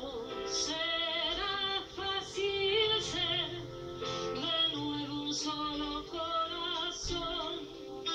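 A woman singing a ballad live with a band, her voice carried in long phrases with vibrato over steady sustained accompaniment.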